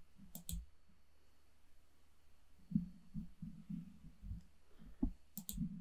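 A computer mouse clicking, once about half a second in and again near the end, with irregular soft low thuds between.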